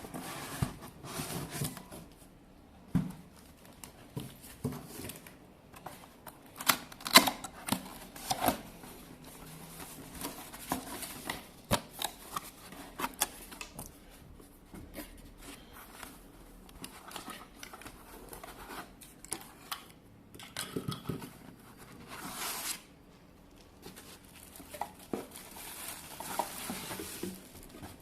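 Cardboard box being opened by hand: irregular knocks, scrapes, cutting and tearing of tape and packaging, with short rustles of the packing.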